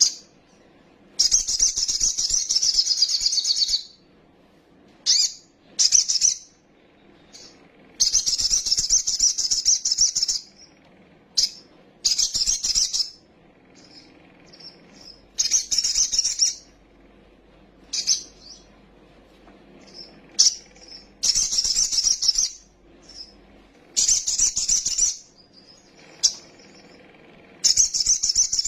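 Sunbird (kolibri sogok ontong) singing a fast, high-pitched chattering song in repeated phrases of one to two and a half seconds with short pauses between them: an agitated full song used as a lure to provoke other birds into singing.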